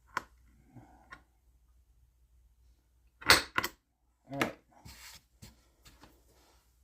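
Knocks and clicks of hand tools being handled and set down on a workbench. The loudest is a pair of sharp knocks, a third of a second apart, about three seconds in.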